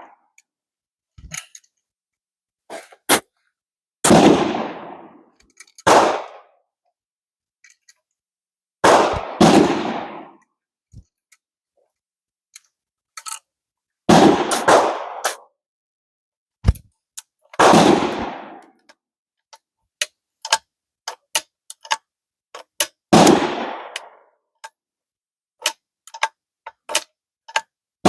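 Gunshots on a firing range: about eight loud reports, each ringing out briefly, some coming in quick pairs about a second apart, so more than one gun is firing. Short sharp clicks and cracks fall between the shots.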